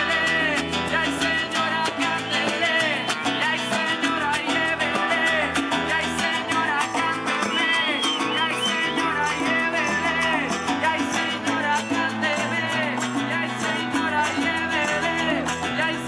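Live Latin-style street band playing an upbeat tune: acoustic guitar with percussion and a voice singing at times.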